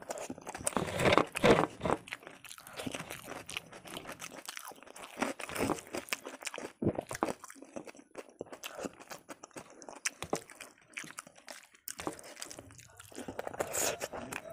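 Close-up chewing and biting: a person eating handfuls of rice by hand, with small crunches, louder about a second in and again near the end.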